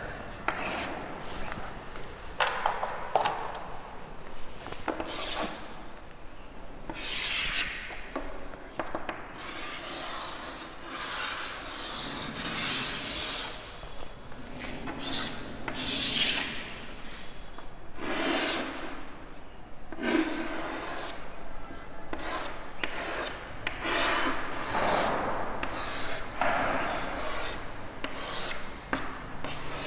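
Chalk scraping and rubbing on a chalkboard in a long run of irregular strokes of varying length, as wave curves are drawn.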